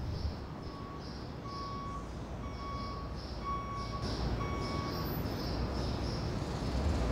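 A vehicle's reversing alarm beeping about once a second, about six beeps, then stopping, over steady outdoor background noise.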